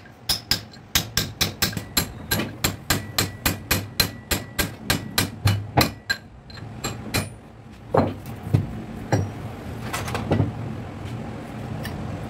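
Hammer tapping on metal in quick, even strokes, about four a second for some six seconds, then a few separate heavier knocks.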